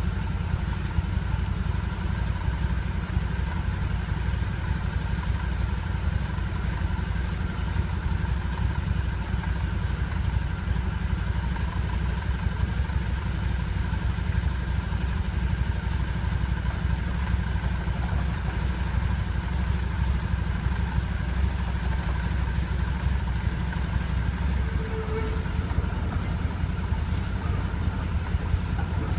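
Motorcycle engine idling steadily while stopped at a light.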